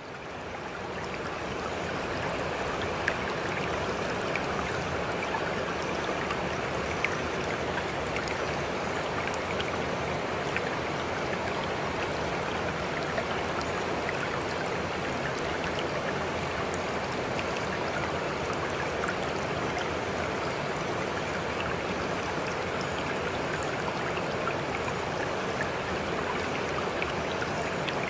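Steady rushing water sound with scattered faint clicks, fading in over the first couple of seconds and then holding even.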